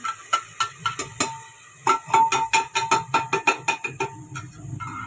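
A slotted steel spatula scraping and tapping onion out of a steel bowl into an aluminium pressure cooker: a quick run of metal clinks, each one ringing briefly, with a short pause about a second and a half in.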